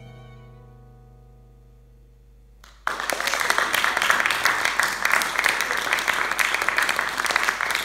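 The last chord of a violin and classical guitar duo rings out and fades away. About three seconds in, audience applause breaks out suddenly, loud and steady.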